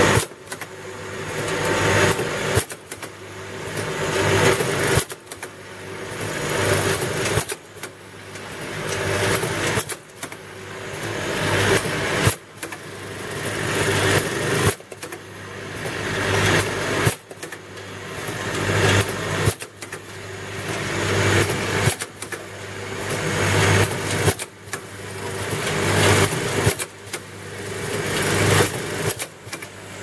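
CX-YGF eyedrop filling, plugging and capping machine running, with a regular mechanical cycle about every two and a half seconds: the sound builds up, then drops off sharply and starts again.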